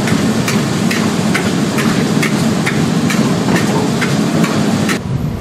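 Food sizzling in a wok while a metal ladle stirs it, scraping and clanking against the wok about twice a second. The sizzling cuts off abruptly about five seconds in.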